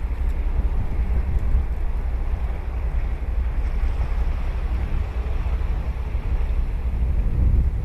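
Ocean surf washing onto a beach, with wind buffeting the microphone as a steady low rumble.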